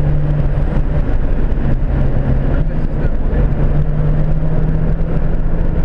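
Turbocharged 1.8 Zetec four-cylinder engine of a Ford Fiesta XR2i at speed, heard inside the cabin over heavy road and wind noise. Its steady note drops away about half a second in, then returns a little higher from about three seconds and holds steady.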